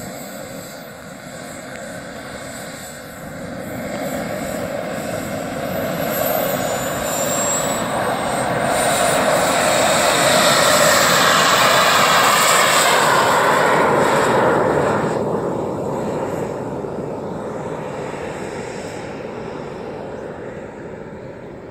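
Radio-controlled model de Havilland Vampire jet taking off: its engine whine rises as it runs up and starts its takeoff roll, is loudest as it rushes past about halfway through, then fades as the model climbs away.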